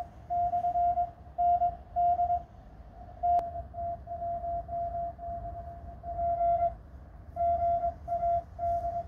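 Morse code (CW) from a portable amateur radio transceiver: a steady tone of about 700 Hz keyed on and off in dots and dashes, over a low hum. A single sharp click about three and a half seconds in.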